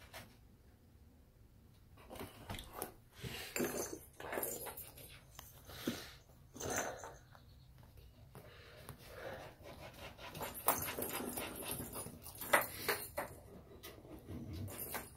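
Kittens playing: irregular soft scuffs, taps and rustles of a toy ball and a knitted towel on a vinyl floor, coming in short uneven bursts and busiest near the end.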